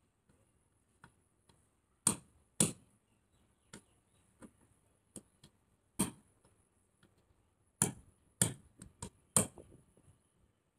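Knife blade chopping down onto a wooden board as the ends of snail shells are cut off: irregular sharp chops. A few loud strokes come among lighter taps.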